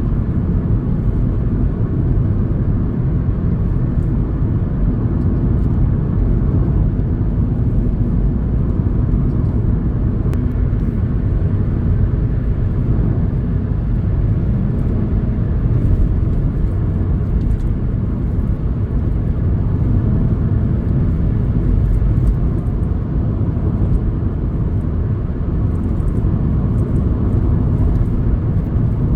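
Car driving along a road: a steady rumble of engine and tyre noise that holds even, without rising or falling.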